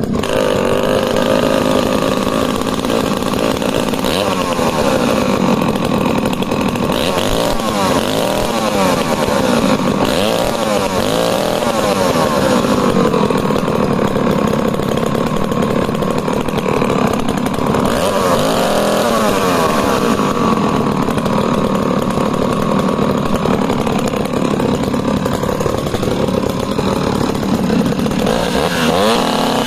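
Two vintage 110 cc two-stroke chainsaws, a Jonsered XF and a Danarm DDA110, running together loudly to warm up. Their engine pitches rise and fall and cross each other as the revs wander.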